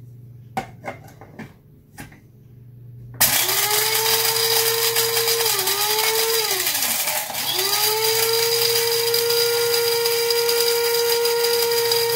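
Small electric blade grinder grinding dehydrated celery into powder: a few clicks as the lid is fitted, then the motor starts suddenly about three seconds in. It winds down briefly around the middle and starts again, then runs steadily.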